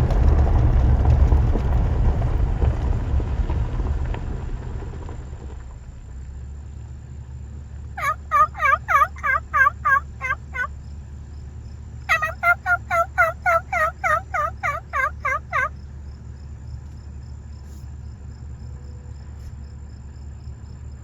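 Turkey calling: two runs of quick, evenly repeated yelping notes, about a dozen and then about sixteen, at four to five a second. Under them is a low rumble that fades out over the first few seconds.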